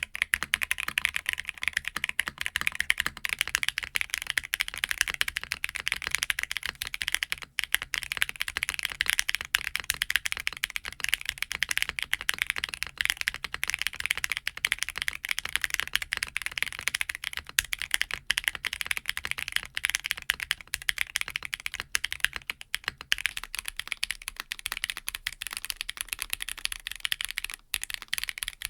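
Continuous fast typing on a mechanical keyboard fitted with stock KBD Fans roller linear switches (ball-bearing linear switches with a PC top, nylon bottom and POM stem), a dense stream of key clacks. The switches sit in a carbon-fibre plate for the first few seconds, then a polypropylene plate, and an aluminium plate for the last few seconds.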